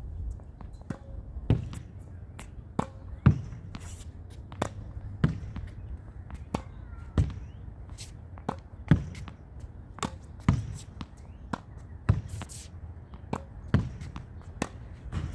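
Tennis ball being hit against a practice wall: a steady run of sharp knocks as the racket strikes the ball and the ball smacks off the wall and bounces on the court, roughly one to two a second, with the racket hits the loudest.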